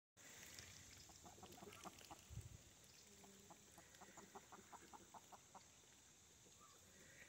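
Faint chicken clucking: a quick, even run of short clucks, about four or five a second, from about a second in until past the middle, with a soft low thump about two and a half seconds in.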